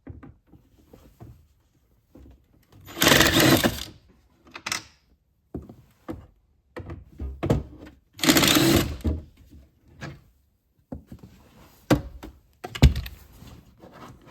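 Two short bursts of a power driver running, about three seconds and eight seconds in, as T27 Torx trim screws are backed out. Scattered clicks and knocks of the tool and plastic trim come in between, with a heavier knock near the end.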